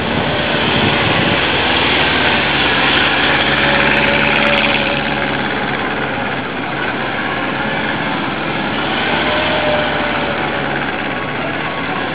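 Motorcycle engines running at low speed, a steady hum under a constant hiss.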